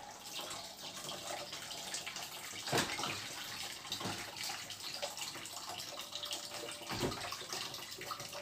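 Water running from a kitchen faucet over a wet cat being bathed and splashing into a stainless steel sink, with two brief louder splashes, about three seconds in and again near seven seconds.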